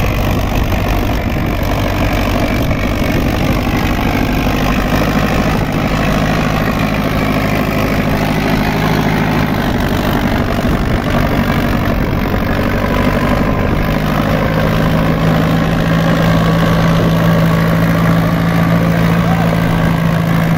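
Sonalika DI 60's four-cylinder diesel engine running steadily under load as the tractor pulls a cultivator through dry soil.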